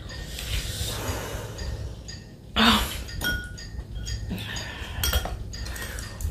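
Forks clinking and tapping against glass bowls as noodles are eaten, with a short loud breathy sound about two and a half seconds in.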